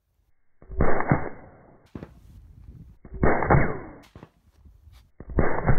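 AR-15 rifle firing 5.56mm rounds: three gunshots about two and a half seconds apart, each a loud crack with a short echoing tail. A fainter sharp tick follows about a second after each shot.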